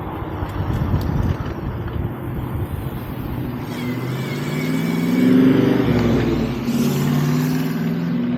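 Wind and road rumble while riding, with a motor vehicle passing; its engine sound swells to a peak about five and a half seconds in and then eases off.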